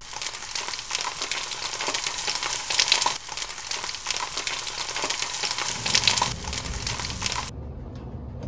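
Dense, steady crackling like food sizzling in a pan, full of fine clicks, which stops suddenly about a second before the end. A low rumble is left after it.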